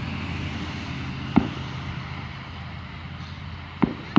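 Fireworks going off: one sharp bang about a third of the way in and another just before the end, over a steady low rumble.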